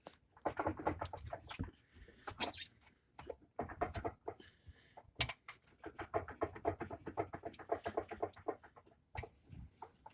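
LG WM0642HW front-load washer drum turning on a low spin with a quick, irregular knocking and rattling, the sign of a loose inner drum.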